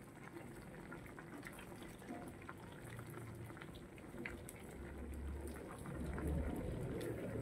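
Water boiling hard in a stainless steel pot, a steady bubbling that grows a little louder over the last few seconds.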